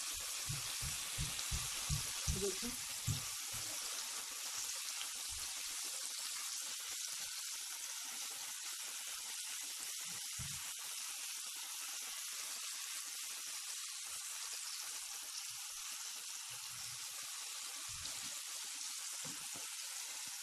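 Oil sizzling steadily as breaded chicken strips shallow-fry in a pan. A run of soft low thumps, about three a second, sounds over the first three seconds.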